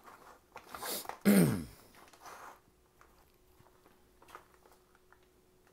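Plastic spoon stirring rehydrated freeze-dried scrambled eggs inside a foil pouch, with a brief crinkle of the pouch about a second in. Just after it comes the loudest sound, a short voice-like sound that falls in pitch, followed by faint scrapes and rustles.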